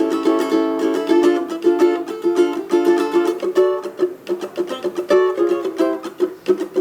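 Locomango custom ukulele playing a samba tune, single plucked notes and strummed chords in a steady rhythm.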